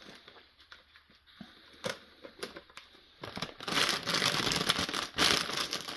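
Plastic instant-noodle packet being handled: a few faint rustles and clicks at first, then loud crinkling and crumpling from about three and a half seconds in.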